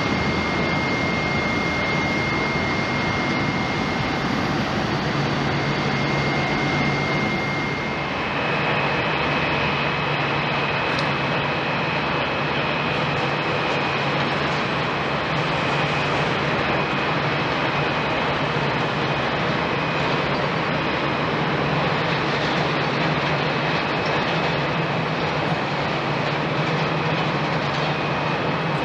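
Airliner jet engine noise, a steady rumble with a high whine over it. About eight seconds in, the sound shifts from an Airbus A330-300 climbing away after takeoff to an Airbus A350-900 on landing approach, with a slightly higher whine and a low hum.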